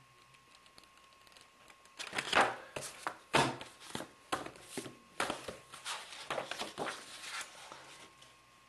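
Packaging being handled: a run of irregular rustles and crinkles starting about two seconds in and dying away near the end.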